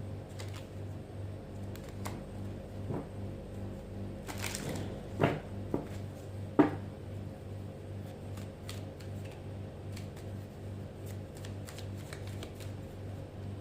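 Tarot cards being shuffled and handled, with scattered light card clicks and two sharp snaps, about five and six and a half seconds in. Underneath is soft background music with a steady pulsing low beat.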